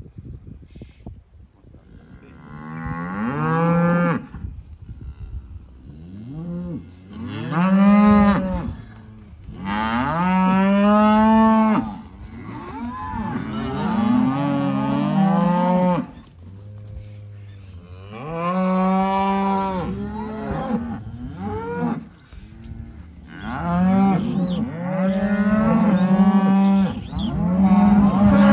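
Calves bawling, one long call after another, about ten over the span, some overlapping.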